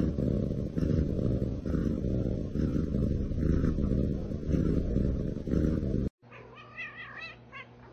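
Domestic cat purring loudly and continuously, a dense low rumble close to the microphone. It cuts off abruptly about six seconds in, and a few faint high wavering chirps follow.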